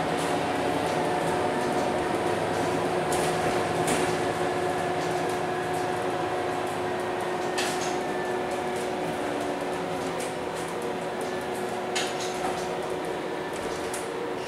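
Cabin sound of a Euro 6 MAN NL323F A22 single-deck bus on the move: steady running noise with a steady whine, plus a few sharp clicks from the interior.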